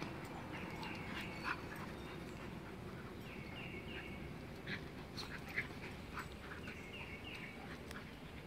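Puppies playing together, giving scattered short yips. A bird repeats a high three-note phrase in the background about every three seconds.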